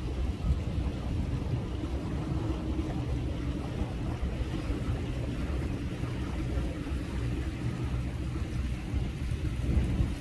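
A boat's engine running steadily as a low rumble, with wind blowing on the microphone over it.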